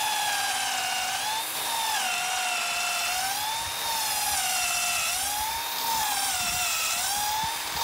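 Porter-Cable cordless drill boring a hole into the end of a wooden fence post, its motor whine dipping and recovering in pitch again and again as the bit loads up in the wood.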